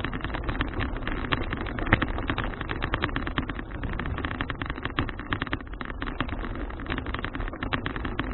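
Steady rush of wind on an action camera's microphone while riding a folding bicycle, with dense clicking and rattling from the bike and camera mount over the road surface.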